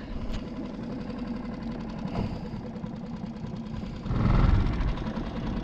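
Outboard motor of a small skiff idling with a steady low hum, swelling louder for about a second around four seconds in.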